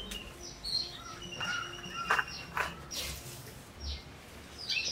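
Small birds chirping and calling in short high notes, with a few light knocks and rustles about halfway through.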